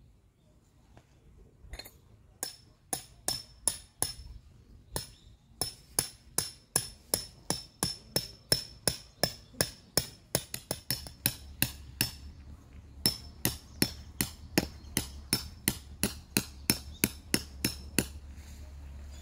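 A hammer driving a metal tent peg into gravelly ground: a long run of sharp, ringing strikes, about two or three a second, with two short pauses.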